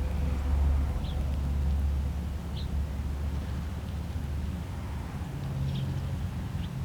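Low rumble of road traffic, strongest early and fading over the first few seconds, with four brief high chirps from small birds at the feeder.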